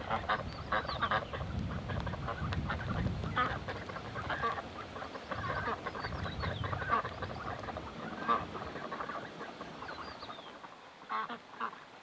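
A group of ducks quacking in short, rapid, repeated calls, over a low rumble that fades out a little past the middle.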